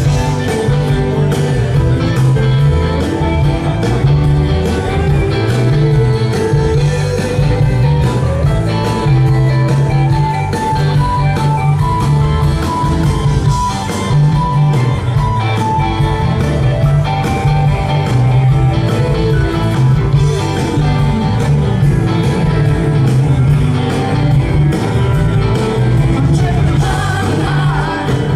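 Live rock band playing steadily and loudly: electric guitars, electric bass and a drum kit, with keyboards.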